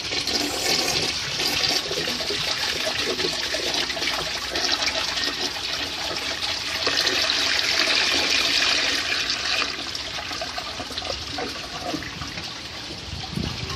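1995 Gerber Mt. Vernon toilet flushing: a steady rush of water that is loudest midway and eases off somewhat in the last few seconds.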